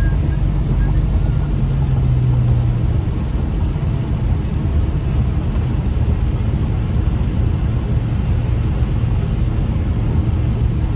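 Steady road noise inside a moving car: the engine running and the tyres on wet pavement.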